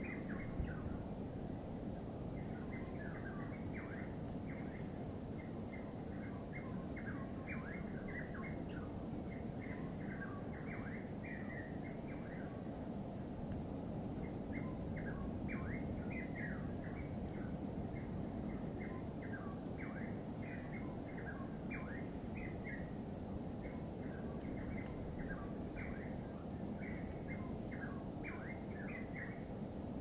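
Many birds chattering in quick, short chirps over the steady low wash of distant waves breaking on rock, with a thin, steady high-pitched tone above them.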